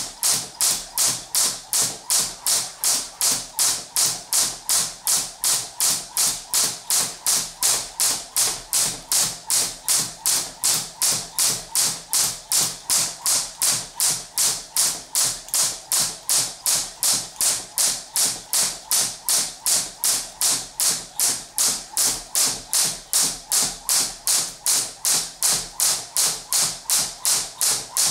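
Crossrope jump rope's cable slapping the floor on each turn: a sharp tick a little over twice a second, at a steady, even pace.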